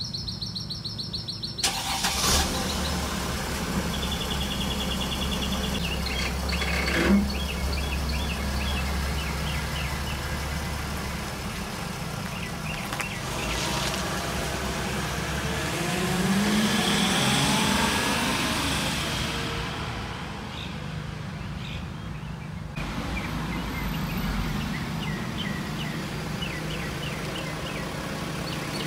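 Diesel V6 engine of a 2008 Sprinter van: a low steady running note begins about two seconds in, with a single thump around seven seconds. About sixteen seconds in the engine revs up and falls back as the van pulls away. Birds chirp throughout.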